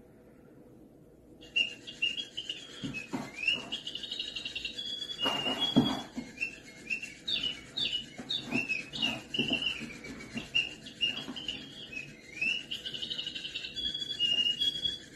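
A small bird chirping over and over in short, high calls, beginning about a second and a half in, with a few knocks among the chirps.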